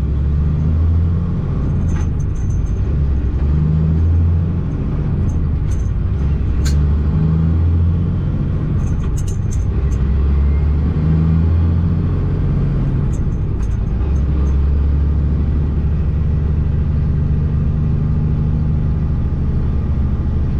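Semi truck engine running while driving, heard from inside the cab: a steady, loud low drone whose pitch shifts in steps several times. A few brief sharp clicks sit over it.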